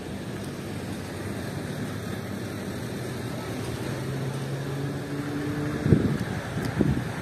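Wind rumbling on the microphone outdoors, with a faint steady hum in the middle and two gusts buffeting the microphone near the end.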